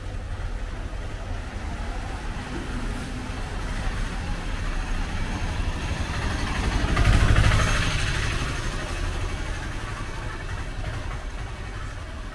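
A three-wheeled tuk-tuk's small engine running as it passes close by, growing to its loudest about seven seconds in and then fading, over a steady low street rumble.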